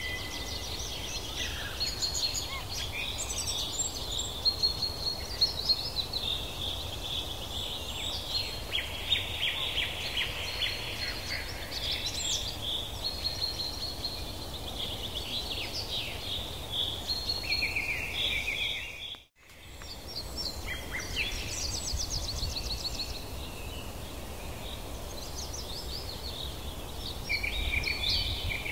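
Several songbirds chirping and trilling over a steady low background rumble, with a brief dropout to silence about two-thirds of the way through.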